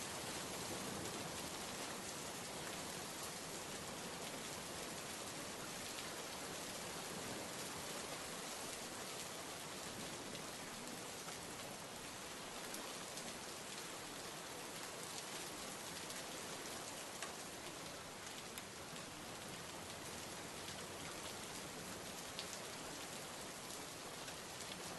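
Steady rain falling on a surface: a continuous even hiss with scattered small drop ticks.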